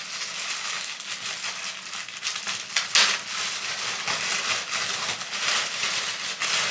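Clear plastic packaging bag crinkling and crackling as it is handled and pulled open, with a sharper crackle about three seconds in.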